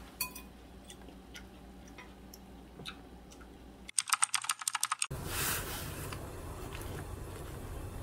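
A quick run of about a dozen sharp typing clicks lasting about a second, a keyboard-typing sound effect over a title card. Before it come faint light clicks of chopsticks and dishes, and after it a steady noisy hiss.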